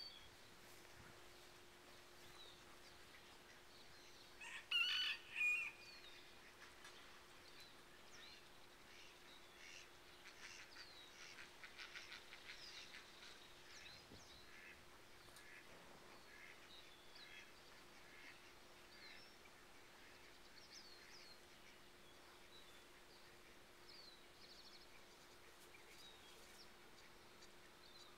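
Birds calling against a quiet background, with two louder calls about five seconds in and scattered short chirps. A faint steady hum runs underneath.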